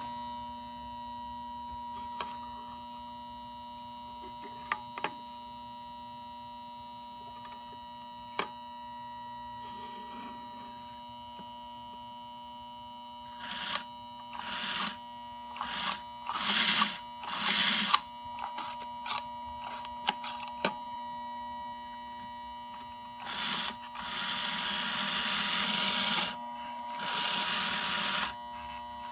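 Vintage Aurora Model Motoring slot car transformer humming steadily with a high tone. About halfway in, the small electric motor of a slot car truck starts whirring in short bursts as the hand controller is pressed, then runs for longer stretches near the end.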